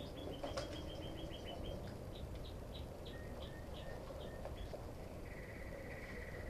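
Faint songbird calls: a fast run of short high chirps at the start, then slower, spaced chirps, and a short trill near the end, over low background noise.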